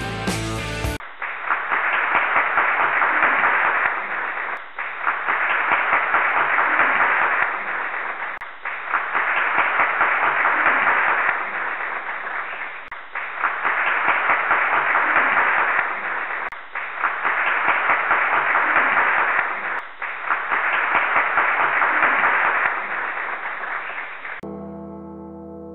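Crowd applauding and cheering in repeated surges of three to four seconds, with short dips between, sounding dull with no top end. Rock music cuts off about a second in, and a sustained keyboard tune starts near the end.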